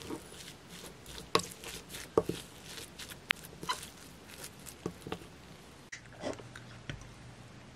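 A wooden spoon stirring wet seasoned salted pollack roe in a glass bowl: irregular clinks and taps on the glass with soft squishing. About six seconds in, an egg is cracked open over a glass measuring cup.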